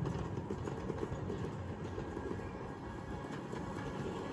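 Ride-on miniature railway train with riders rolling along the track toward the listener: a steady rumble of its wheels on the rails, with a few faint clicks.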